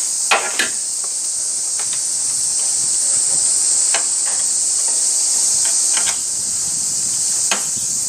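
A few sharp clicks and knocks as the charging hose's quick-coupler is pushed and snapped onto a car air conditioner's low-pressure service port. A steady high insect drone runs underneath throughout.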